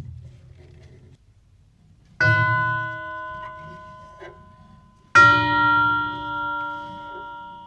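Chime tubes of a Herschede tubular-bell grandfather clock struck twice, about three seconds apart, each note ringing on and slowly dying away.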